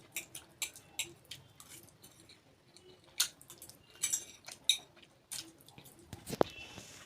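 Close-up eating sounds: irregular short clicks and taps of a utensil against a plate as food is picked up and eaten, with a louder ringing clink a little after six seconds in.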